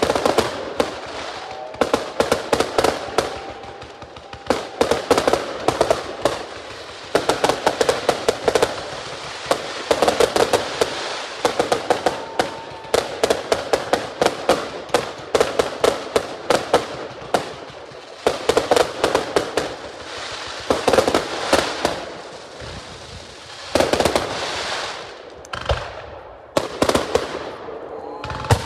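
Fireworks display: aerial shells bursting in rapid volleys of bangs and crackling, with a few short lulls between volleys.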